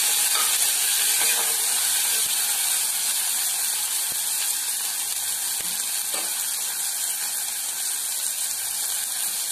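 Onions, tomatoes and turmeric sizzling steadily as they sauté in oil in an aluminium pressure cooker, with a metal ladle stirring and scraping against the pot.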